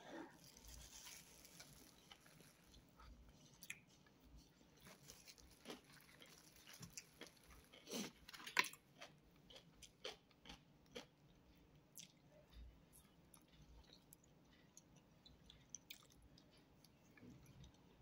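Faint close-up chewing and biting of satay and rice: irregular wet smacks and clicks of the mouth, a little louder about halfway through.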